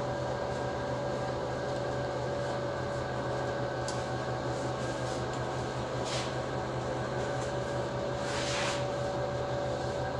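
Steady mechanical hum of the paint booth's ventilation, with two short hisses of an air spray gun about six and eight seconds in.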